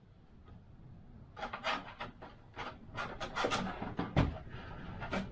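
A run of short scraping, rasping strokes on a 3D-printed airframe part, starting about a second and a half in, with a single knock about four seconds in.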